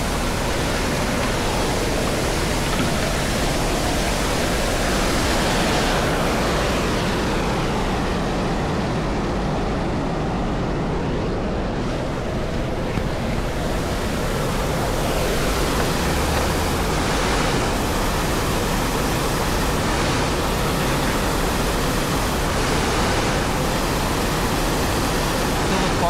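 Waterfall rushing steadily: the even, continuous noise of white water pouring down.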